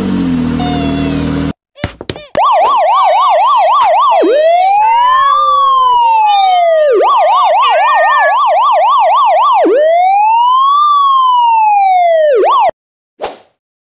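Electronic police siren switching between a slow rising-and-falling wail and a fast yelp, cutting off suddenly near the end.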